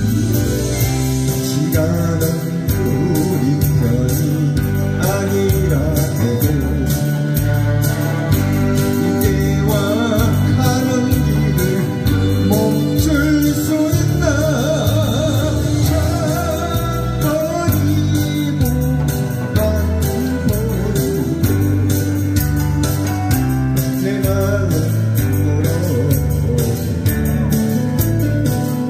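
A song: a singer's voice over backing music with guitar and a steady beat.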